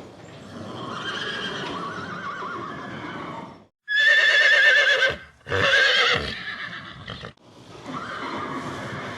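Horses neighing: several separate whinnies joined by abrupt cuts. The loudest, about four seconds in, is a shrill quavering whinny that breaks off and trails downward.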